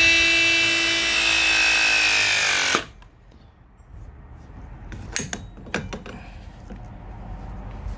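Battery-powered ProPress press tool with a 1-inch Ridgid jaw crimping a copper fitting: the motor whines steadily for about three seconds, its pitch sagging slightly at the end, then cuts off suddenly as the press cycle completes. A few sharp clicks follow a couple of seconds later.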